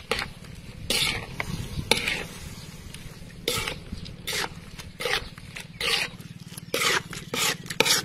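Spatula scraping across a wok while stir-frying squid and bean sprouts: about ten short scrapes at an irregular pace, over a steady low hum.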